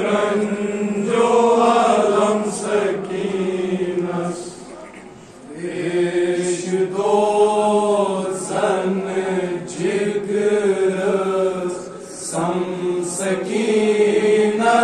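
Voices chanting a Kashmiri noha, a Shia mourning elegy, in a slow, drawn-out sung melody. The chant dips briefly about five seconds in, then resumes.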